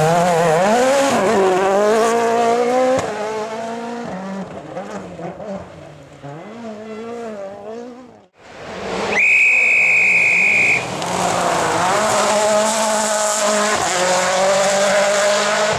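Rally cars at full throttle on a special stage: an engine revving and shifting as the car passes and fades away, then, after a sudden cut, a shrill steady squeal lasting about a second and a half, followed by another car's engine coming in at high revs.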